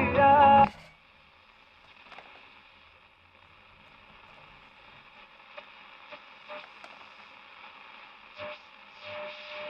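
A 1938 Zenith 12S265 console radio tuned between stations: music cuts off early on the dial and the speaker gives a soft static hiss with faint crackles. Near the end, a steady tone and louder hiss come in as the next station is approached.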